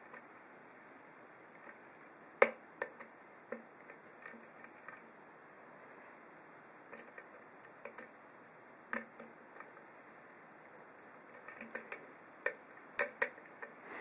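Faint metallic clicks of a hook pick and tension wrench working the pin stacks of an ASSA 2 padlock's snowman-pin cylinder: scattered single clicks, the sharpest about two and a half seconds in, and a quicker run of clicks near the end.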